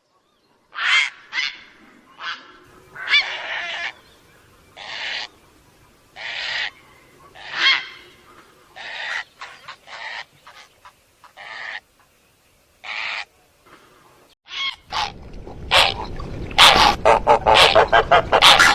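Bird-call lure recording of the zarki and the heron: single calls about once a second, then, about three-quarters of the way in, a fast dense run of calls over a low rumble.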